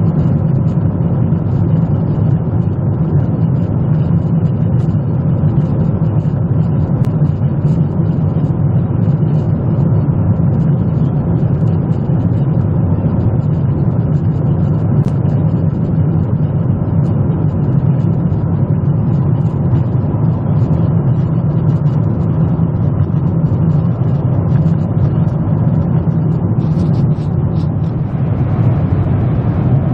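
Steady cabin drone of a Boeing 777 in cruise: jet engine and airflow noise, deep and unchanging. A few faint clicks near the end.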